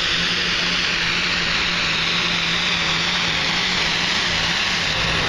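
Diesel pulling tractor running flat out under load down the track, a dense loud hiss over one steady engine note that sags slightly near the end.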